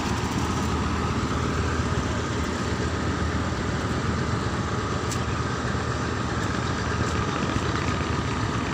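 Diesel engine of a large wooden river passenger boat running with a steady low drone while the boat is under way.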